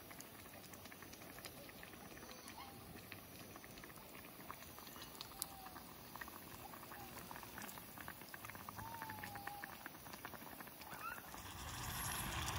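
Broth simmering in a cast-iron skillet over a small wood fire, a steady bubbling with many fine pops and crackles and a few short squeaky whistles. Near the end a louder hissing rush comes in.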